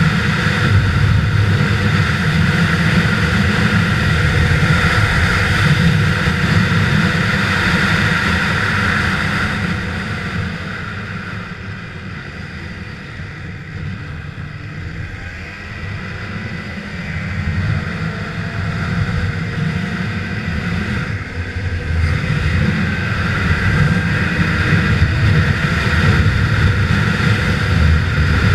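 Snowmobile engine running at speed on a snow trail, a steady drone. About ten seconds in it drops to a quieter, lower run for several seconds, then builds back up after about twenty seconds.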